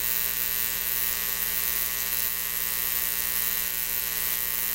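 Steady electrical buzz with hiss: a constant hum made of many evenly spaced tones.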